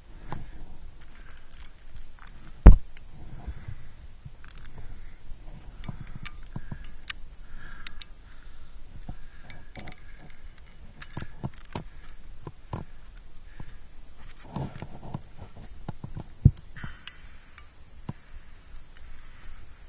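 Climber moving on sandstone: scattered scrapes, taps and small clicks of hands, shoes and clinking climbing gear against the rock. There is a sharp knock about two and a half seconds in, the loudest sound, and another about sixteen seconds in.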